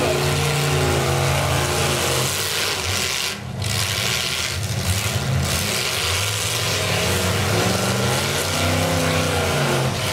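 Several demolition-derby car engines revving hard, their pitch rising and falling as the cars spin their wheels and push against one another in mud. There is a brief lull about three and a half seconds in.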